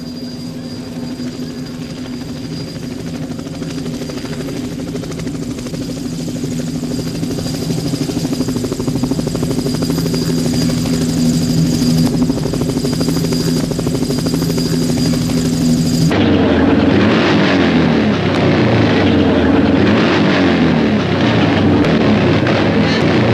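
Recorded helicopter sound effect: a steady, beating rotor and engine drone that slowly grows louder. About two-thirds of the way through it cuts abruptly to a louder, rougher vehicle sound whose pitch swings up and down.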